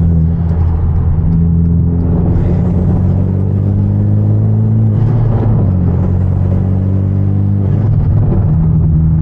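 Hyundai Genesis Coupe's turbocharged 2.0-litre four-cylinder engine running under load, its pitch rising slowly, with a break in the note about five seconds in and another about eight seconds in.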